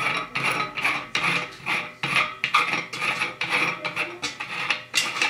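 Socket ring being screwed by hand onto the threaded base of a pendant light socket, through a hole in a metal filter housing: a quick run of rasping scrapes, about three a second, as it is twisted tight.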